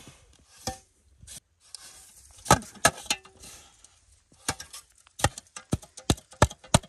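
Snow being shovelled into a metal pot with a small hand shovel: sharp crunching knocks, a few scattered at first, then a quicker run of about three a second in the second half.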